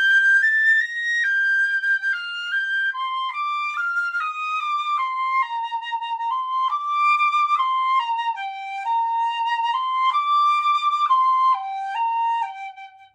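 Wooden piccolo played solo in its low register with a mellow tone: a slow melody of held notes, mostly in steps, that winds downward overall and ends on a low note.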